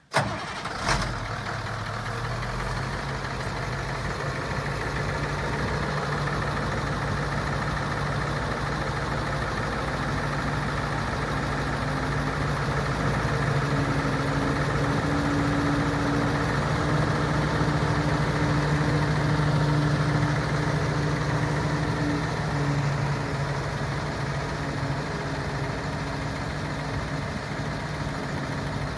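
International dump truck engine running steadily at idle while the hydraulic hoist raises the dump bed. There is a sharp click about a second in. The engine note rises a little and grows louder through the middle, then settles back.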